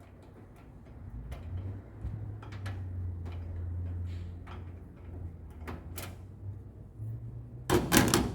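Washing machine panels and parts being handled during disassembly: scattered clicks and knocks over a low hum, then a loud sliding, rattling scrape near the end.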